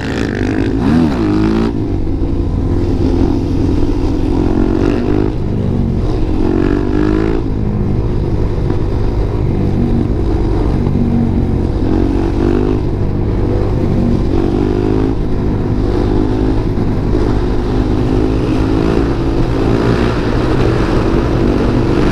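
Supermoto motorcycle engine running on the move, its revs rising and falling again and again.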